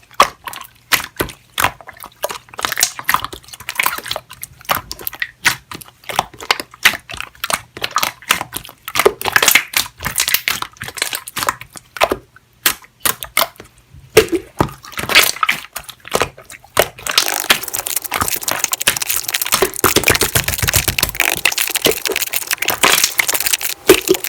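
Slime being squeezed and pressed by hand, making irregular sticky clicks and pops that turn into a dense, continuous crackle about two-thirds of the way through.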